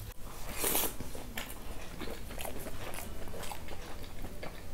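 Close-up chewing of a mouthful of rice mixed with fried potato: a sharp mouth sound just under a second in, then many small, irregular wet clicks of chewing. The fried potato has gone a little soggy.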